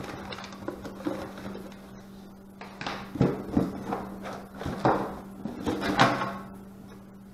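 Packing paper rustling in a small cardboard box. The box is then shaken upside down, and its contents knock and clatter out onto a wooden table in a run of about six thumps between three and six seconds in. A steady low hum runs underneath.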